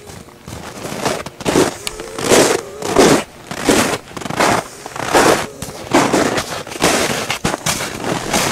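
Footsteps crunching in snow, an even walking pace of a little more than one step a second.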